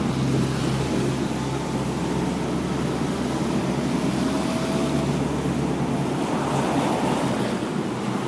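Street traffic on a wet road: tyres hissing as vehicles pass, over a steady low engine hum that fades near the end.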